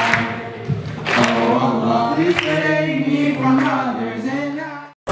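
Male a cappella group singing held chords in close harmony. The singing cuts off abruptly near the end.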